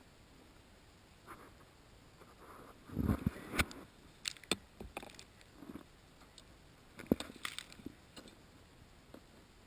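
A few faint scrapes and knocks against a quiet hiss. The loudest cluster comes about three seconds in, and a single sharp knock about seven seconds in.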